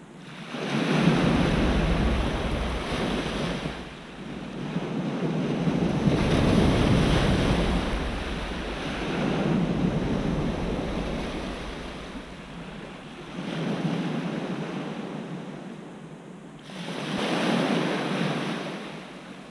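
Small waves breaking and washing over a pebble shore, the surf swelling and fading five times, about every three to four seconds.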